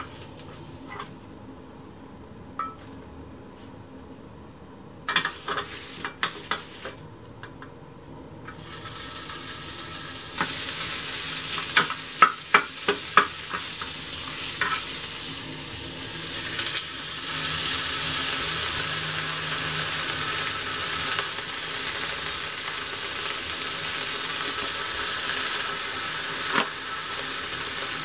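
Ground meat sizzling as it fries in a rectangular tamagoyaki pan, with a wooden spatula clacking and scraping against the pan as it is stirred. The first part is quieter, with a few light utensil taps. The sizzle builds from about nine seconds in and then holds steady.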